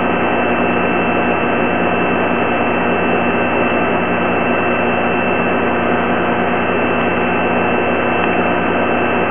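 Steady hiss with a constant hum that does not change, with no splash or other separate event standing out.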